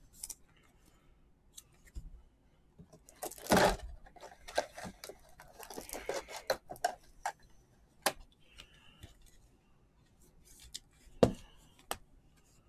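Trading cards being handled during a pack opening: scattered paper rustles, flicks and slides as cards are moved through the hands. The loudest rustle comes about three and a half seconds in, and a sharp flick comes near the end.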